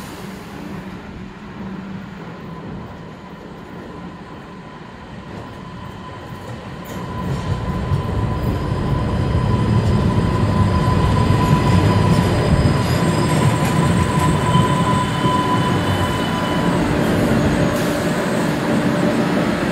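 Two-car MBTA Green Line light-rail train pulling into a station platform: a low rumble that grows much louder about seven seconds in and stays strong, with a steady high-pitched whine running through the approach that fades out near the end.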